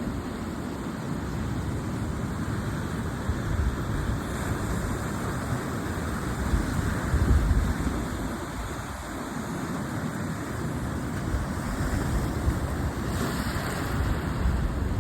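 Sea waves washing ashore in a steady rush, with wind buffeting the microphone in uneven low rumbles.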